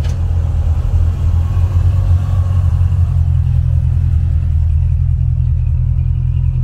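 Low, steady exhaust rumble of a classic Chevrolet Chevelle's engine as the car rolls slowly past at low speed.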